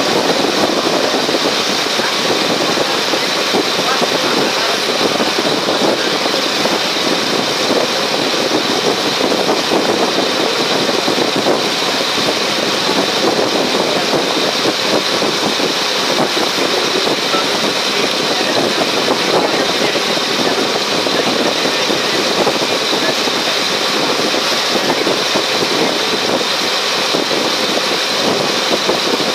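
Steady drone of a passenger ferry's engine under way, mixed with the rush of water and wind, unchanging throughout.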